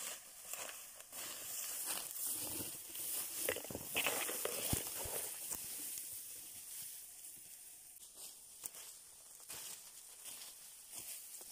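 Footsteps and rustling through tall dry grass as a bundle of cut grass is carried through, brushing the stalks. The rustling is loudest about four to five seconds in and quieter after.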